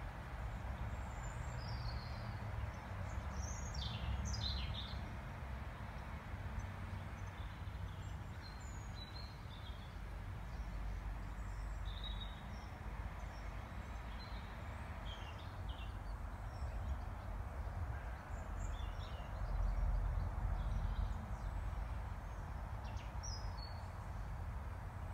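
Garden ambience: small birds chirping and calling here and there over a steady low rumble, which swells briefly about two-thirds of the way through.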